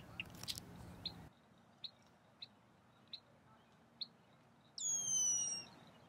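Red-winged blackbird giving short, high check notes about every two-thirds of a second, then a loud descending whistled call lasting about a second near the end. A low steady hum stops abruptly a little over a second in.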